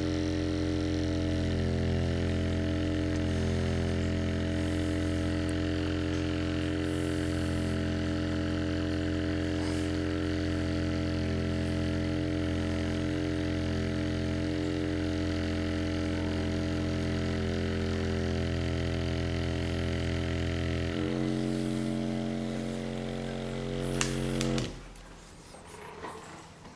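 An electric vibrating massage device running with a steady motor hum; its tone shifts slightly about 21 seconds in, and it switches off about two seconds before the end.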